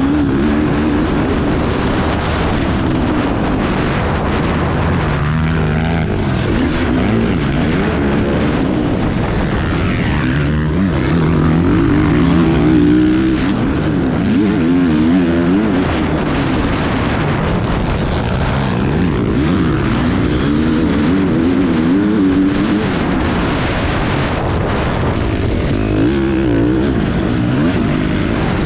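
Husqvarna motocross bike's engine, heard close from the bike itself, revving up and down repeatedly as it is ridden hard round a dirt track, over a steady rush of wind noise.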